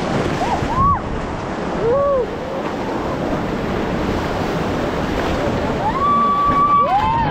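Ganges river water rushing loudly, with wind buffeting the microphone. A few short rising-and-falling shouts from people come through the water noise, with more of them near the end.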